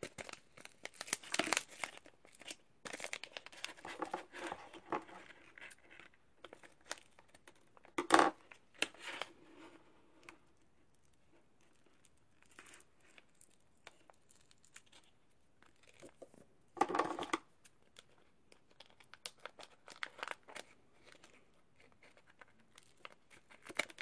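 Yummy Nummies gummy-mix powder packets crinkling as they are handled and tapped, and tearing as they are opened, with a few louder rustles, the loudest about eight seconds in.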